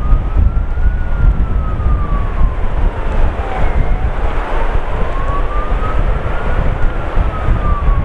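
Strong wind buffeting the microphone with a heavy low rumble. Over it, a siren wails, rising and falling slowly twice.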